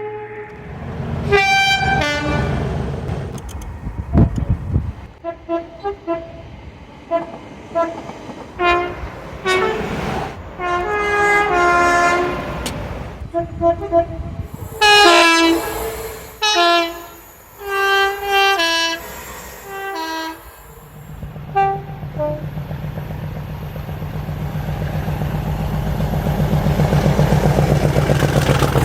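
Two-tone train horns sounding a long run of blasts, from held notes to quick short toots, loudest about halfway through. After that a train's low, steady running drone grows louder toward the end.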